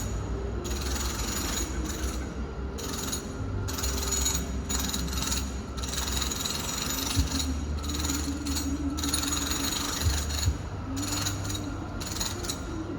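Home renovation noise heard muffled from another room: a power tool running in short on-and-off spells over a steady low machine hum, with a couple of sharp knocks.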